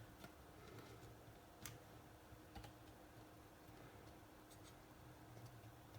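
Near silence with a few faint, short clicks of small parts being handled, scattered through the first half.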